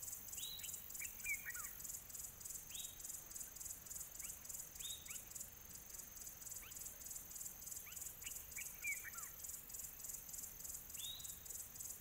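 Faint nature ambience: a high-pitched insect chorus pulsing at about four times a second, with short down-slurred bird whistles every second or two.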